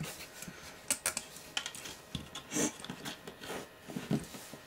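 Irregular small clicks and knocks of metal parts being handled: a circular connector and its metal cap against the aluminium chassis of the tape drive, about eight separate taps over a few seconds.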